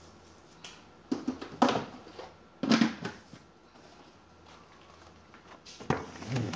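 A few short knocks and clatters of things being handled, in three bursts: a little after a second in, near the middle, and near the end.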